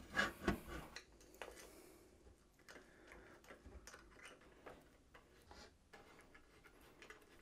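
Faint, irregular metallic ticks and clicks of a hex key turning M5 bolts into the tapped holes of an aluminium extrusion frame, starting the bolts by hand. A couple of louder handling knocks come in the first second.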